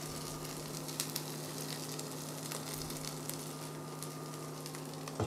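Filo-pastry byrek frying in a non-stick pan, sizzling steadily with small crackles as its second side cooks on lowered heat, over the steady hum of an induction hob. A spatula knocks against the pan near the end.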